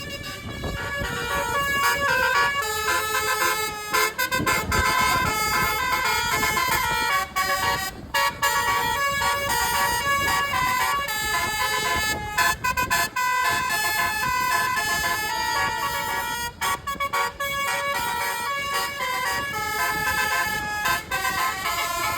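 Bus telolet horn, a multi-trumpet air horn, playing a tune of stepped notes with several trumpets sounding together and brief pauses between phrases.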